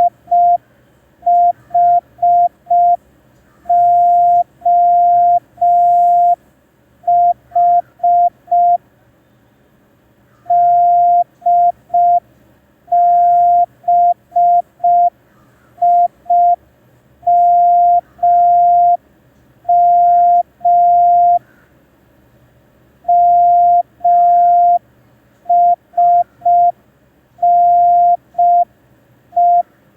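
Morse code practice tone: a single steady-pitch beep keyed on and off into short dots and long dashes at slow speed, sent as groups of random letters for receiving practice.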